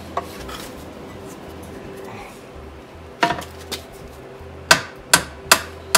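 A hammer gently tapping a stuck dowel pin in a 1926 Oakland engine's timing cover held at a vise, making sharp metallic taps. The taps start about halfway through and come quicker, about two or three a second, near the end. They are loosening the pin, which moves freely.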